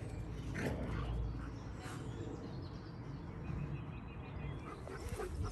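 Quiet outdoor background with faint bird chirps and a few soft thumps.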